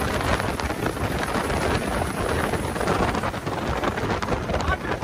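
Twin-turbo longtail riverboat engine running hard at speed, heard from aboard, with heavy wind buffeting on the microphone.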